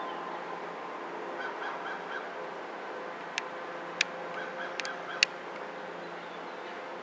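A bird calling in two short runs of quick repeated notes over a steady outdoor hum, with four sharp clicks in the middle.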